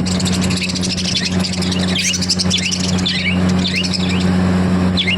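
Small parrots chirping in many quick, short calls that slide up and down in pitch, over a steady low hum.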